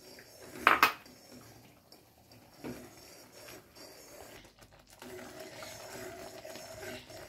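Metal spoon scraping and clinking against a metal kadai while stirring semolina into water, with two sharp clanks close together about a second in.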